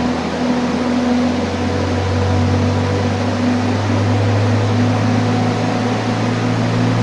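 VAZ 2103's 1.5-litre inline-four, detuned with double head gaskets to run on low-octane fuel, pulling under load on a chassis dynamometer. Its note climbs slowly and steadily as the revs rise from about 2,500 to 3,400 rpm.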